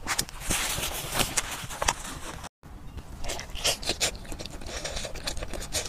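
Close-miked eating sounds: a person chewing with many small wet clicks and mouth noises. The sound breaks off briefly a little before the middle, then goes on as biting and chewing of soft, sticky braised pork with its skin.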